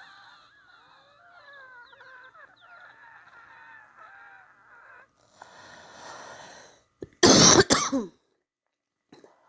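Wheezing breaths of a person with influenza A: faint, wavering whistle-like tones on the breath, then a noisy breath, then a loud cough in two quick bursts about seven seconds in.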